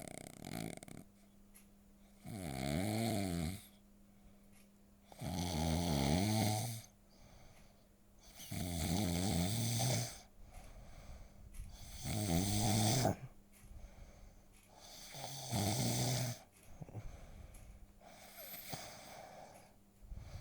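A sleeping domestic cat snoring, with one loud snore about every three seconds, seven in all. Each snore is a buzzing tone that wavers in pitch. Quieter breaths come between them.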